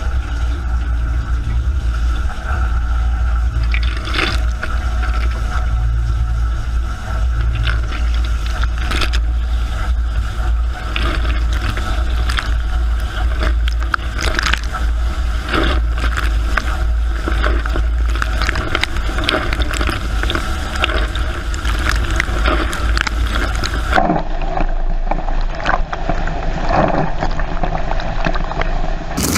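Dishwasher running, heard from inside the wash tub: a steady low motor-pump hum under water jets spraying and splashing against the camera. The sound changes abruptly about 24 seconds in.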